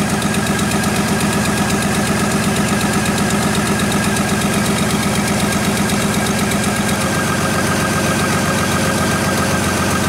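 GM Trailblazer's engine idling roughly with a bad misfire, steady throughout: one cylinder is not firing because of a dead ignition coil.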